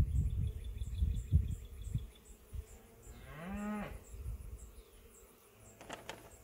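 Irregular low rumbling bumps on the microphone for about two seconds. About three seconds in comes one short drawn-out animal-like call that rises and then falls. Faint, evenly repeated insect chirping continues throughout.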